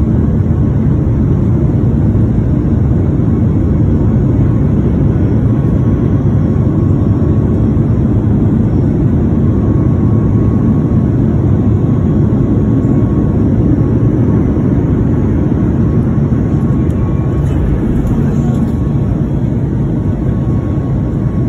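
Cabin noise of a Boeing 737 MAX 8 climbing after takeoff, heard from a window seat beside the wing engine. The CFM LEAP-1B engines and the airflow make a steady, loud, deep rush.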